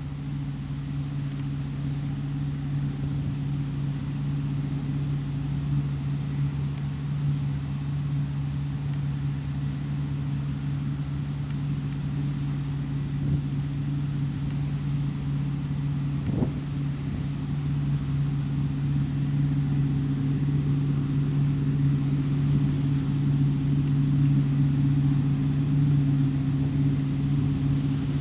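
Heavy farm machinery's diesel engine running at a steady speed: a steady low drone that grows a little louder in the second half, with one brief click about two-thirds of the way through.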